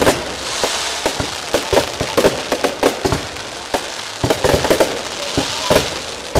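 Aerial fireworks going off: an irregular run of bangs, several a second, as shells launch and burst, over a continuous crackle and hiss of sparks.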